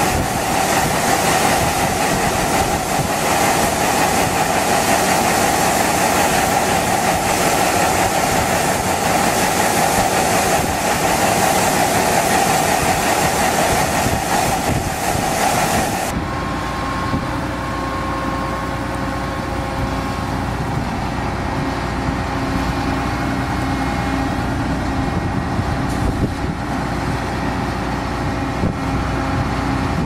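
Grain-handling machinery (grain cart and auger with a tractor) running with a loud, steady rushing noise; about halfway through, this cuts to the lower, steadier hum of a John Deere combine's engine running.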